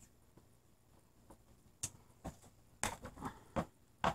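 Light handling sounds: scattered clicks and taps from hands working electrical tape around a heavy cable on a wooden tabletop, with a short cluster of louder rustling taps about three seconds in and a sharper knock near the end.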